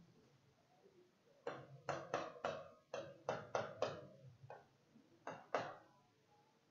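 Marker pen writing on a whiteboard: about ten short, scratchy strokes in quick succession, starting about a second and a half in.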